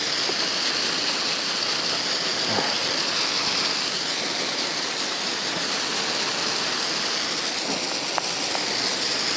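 Garden hose spraying water onto a freshly poured concrete slab, a steady hiss, keeping the new concrete wet as it sets.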